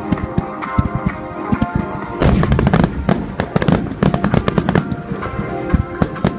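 Aerial fireworks bursting in a festival finale: scattered bangs at first, then a rapid barrage of loud bangs from about two seconds in, with music playing throughout.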